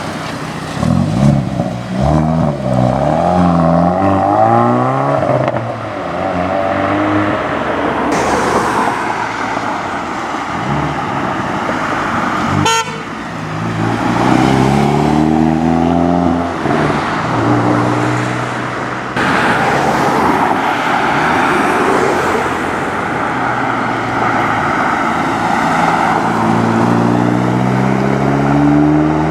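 Hyundai i30N hot hatches with their turbocharged four-cylinder engines and sports exhausts accelerating away, one after another. Each rises in pitch through the gears, and there are three such pulls. A single sharp crack comes about halfway through.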